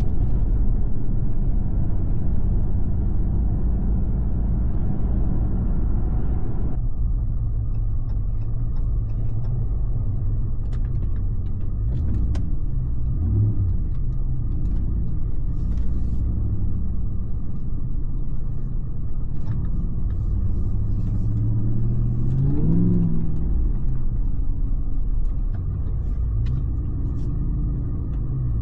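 2022 Ram TRX's supercharged 6.2-litre V8 with aftermarket SLP-resonator exhaust running under way with a deep rumble. The engine note rises and falls as the truck speeds up, once about halfway through and again a few seconds later.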